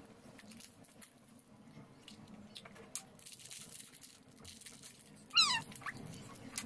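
Faint clicks and rustles of plastic toy capsules being handled, and about five seconds in one short, high cry that falls steeply in pitch.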